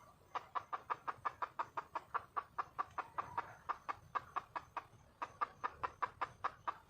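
Red junglefowl hen clucking in a fast, even run of about five clucks a second, breaking off briefly near the middle and then starting again. This is the wild hen's call for a mate.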